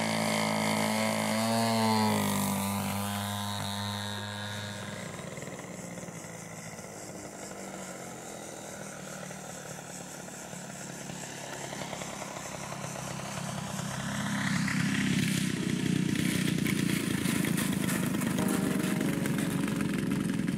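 OS 61cc two-stroke petrol engine and propeller of a large radio-control P-51D Mustang model: it passes by with the pitch dropping about two seconds in, then fades to a quieter drone. It grows louder again about two-thirds through and runs roughly while the model is on the grass taxiing.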